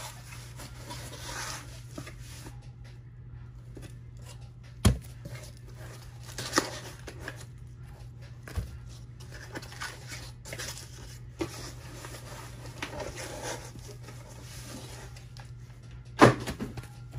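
A cardboard shipping box and its packing being handled and opened, with rustling and scraping and a few sharp knocks, the loudest about five seconds in and again near the end. A steady low hum sits underneath.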